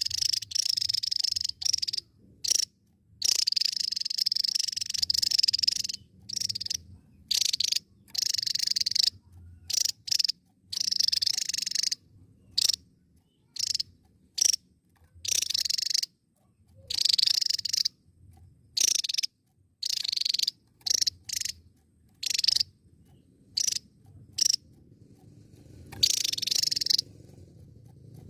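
Javan tesia singing: bursts of high, rapid, buzzy song, some only a note long and others running a second or two, separated by short pauses.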